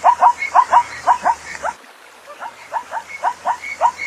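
Zebra's barking call: a quick series of short, yelping barks, about four to five a second, breaking off just under two seconds in and starting again half a second later.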